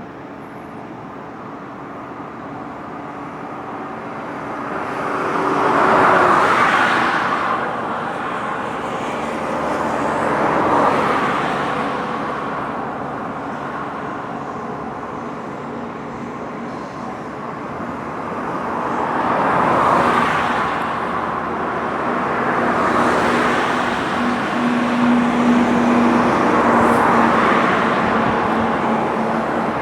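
Road traffic passing on the bridge close by: cars go by one after another, each tyre-and-engine swell rising and fading over a few seconds, about five times. A low steady engine hum runs under the second half.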